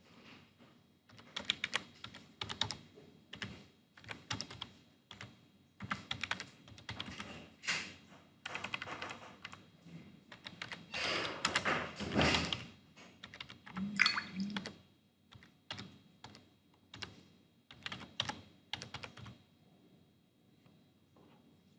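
Typing on a computer keyboard: runs of quick keystrokes in uneven bursts that stop a couple of seconds before the end.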